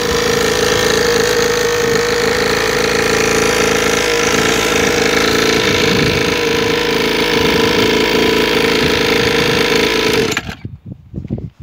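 A 49cc two-stroke minicross engine running steadily, then cutting off suddenly about ten seconds in. A few light clicks and knocks follow.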